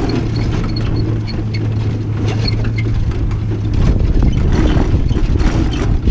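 Horse-drawn carriage in motion: a steady rumble with a faint, even ticking about three times a second.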